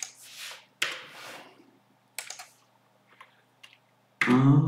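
A few separate computer keyboard keystrokes, clicking at uneven intervals. Near the end comes a short, louder burst of a man's voice.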